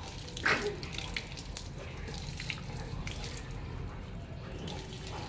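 Water gushing steadily from a garden hose and splashing onto a stone floor. A few short, louder sounds stand out, the loudest about half a second in.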